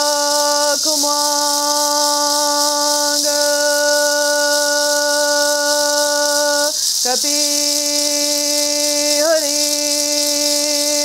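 A woman's voice chanting long, steady held notes on one pitch, breaking off briefly about a second in and again near seven seconds, over the steady hiss of a gourd rattle being shaken.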